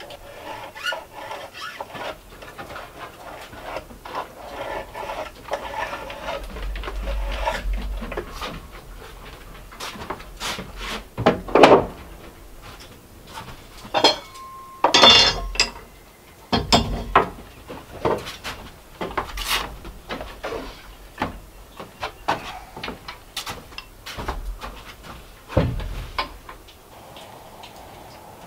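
A pencil scratches along a straightedge on pine boards for several seconds. After that come a series of knocks and clatters as tools are handled and set down on the wooden tabletop, one with a brief metallic ring.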